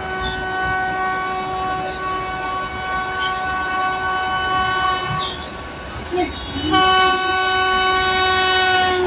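Electric locomotive's horn sounding two long steady blasts: the first lasts about five seconds, the second starts about a second and a half later and runs nearly three seconds.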